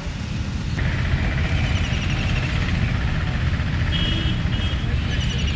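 Road traffic: a steady low vehicle rumble, with two short horn toots about four seconds in.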